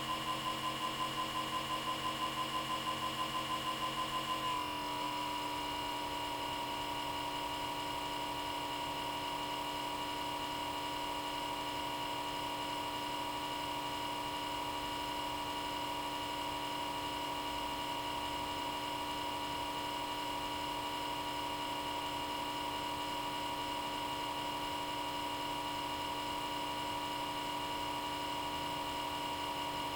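Comcast X1 DVR cable box's small cooling fan running at high speed, a loud steady hum with a whine; for the first four and a half seconds it wavers in loudness about three times a second, then it dips slightly in pitch and settles into an even hum. The fan runs at high speed all the time, even with the box switched off.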